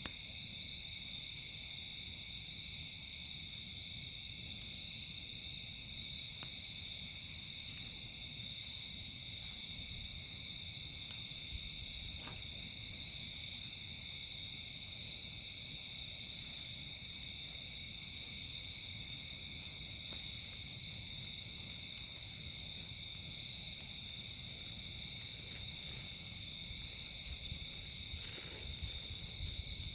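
Steady night chorus of crickets and other insects, with a higher insect trill that returns about every five seconds. Low rumble underneath and a few faint pops from the campfire.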